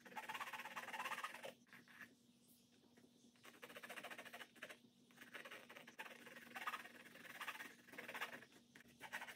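Colored pencil scratching over textured canvas in quick back-and-forth strokes, a grainy rasp that comes in bouts with a short pause about two seconds in. Faint, over a steady low hum.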